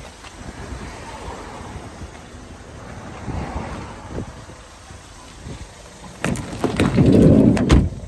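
Low rustling and handling noise, then near the end the van's sliding side door rolls shut with a rumble and closes with a thud and sharp latch knocks.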